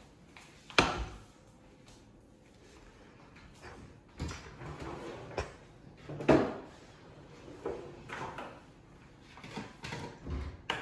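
A kitchen drawer being opened and shut and dishes being handled: a string of separate knocks and clatters, the sharpest about a second in.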